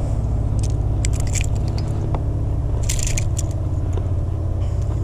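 Boat motor running with a steady low hum, with scattered short clicks and scrapes of handling over it, at about one second in and again around three seconds.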